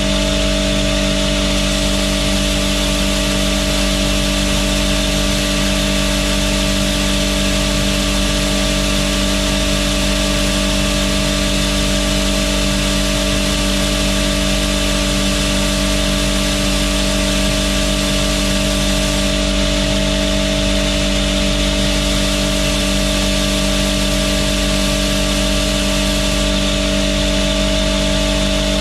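Belt grinder running steadily with a coarse 40-grit belt, grinding stag antler handle scales flat: a constant motor hum under an even grinding hiss.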